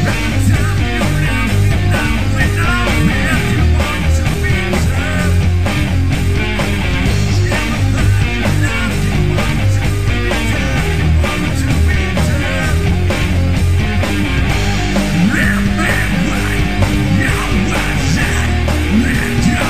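Loud rock music with distorted guitars and a steady driving beat.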